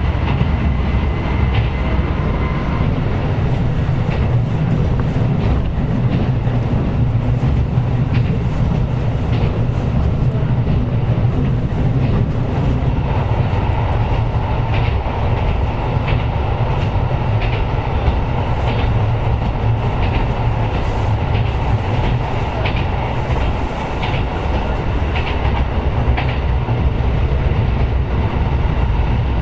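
KiHa 125 diesel railcar under way: a steady rumble of engine and wheels, with the clickety-clack of wheels over rail joints coming every second or two. A faint steady whine sits over the rumble for the first few seconds.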